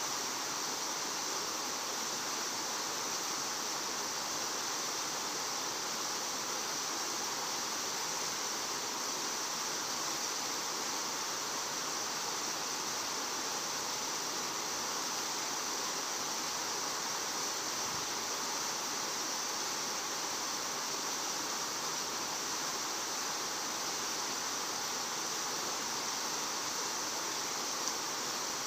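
Steady outdoor background noise: an even hiss with a brighter high band, unchanged throughout, and one faint click near the end.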